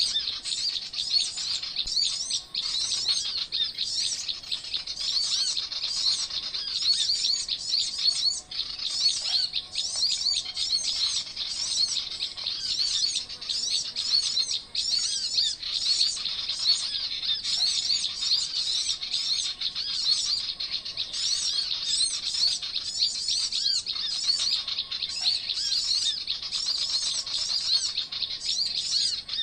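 Dense, continuous high-pitched chirping and twittering of many small songbirds, with a fainter, lower held whistle now and then.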